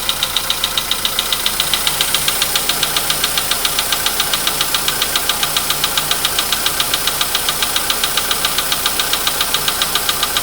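Volkswagen Polo Sedan engine idling just after a cold start, with a steady metallic knock repeating several times a second. The owner calls it scary and likens it to an anvil, and says the knock has been getting worse.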